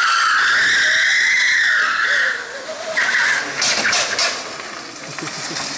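Electric go-kart's tyres squealing as it slides sideways across paving stones: one long squeal for about two seconds, a shorter one about three seconds in, then a few sharp ticks.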